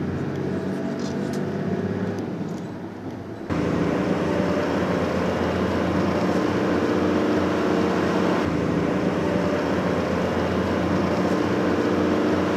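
Engine and road noise inside a car. A steady hum for the first few seconds, then an abrupt step up to louder driving noise about three and a half seconds in.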